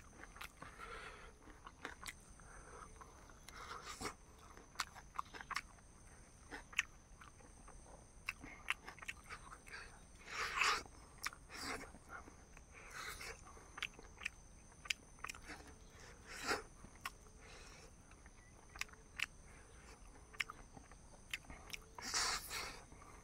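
A person eating: chewing and biting food, with many sharp clicks and wet smacks and a few louder crunches, the loudest about ten seconds in and near the end.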